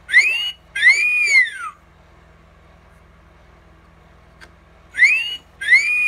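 Animatronic talking parrot toy's speaker playing a wolf whistle twice, about five seconds apart: each is a short upward sweep followed by a longer note that rises and falls.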